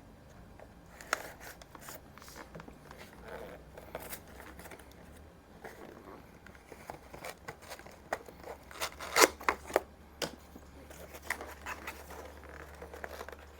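Cardboard box being cut open with a knife and the packaging handled: irregular scraping, rustling and clicking, with a few sharper knocks a little past the middle, over a steady low hum.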